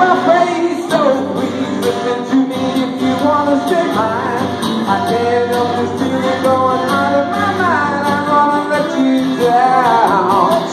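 Live acoustic and electric guitar playing a rock-and-roll song together, with a man singing the melody.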